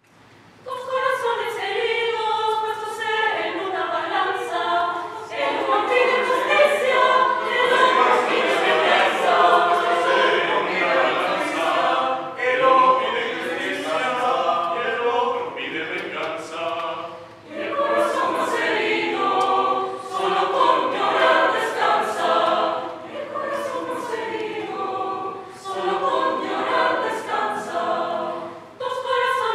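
Mixed choir of women's and men's voices singing a cappella under a conductor, with short breaks between phrases about seventeen seconds in and near the end.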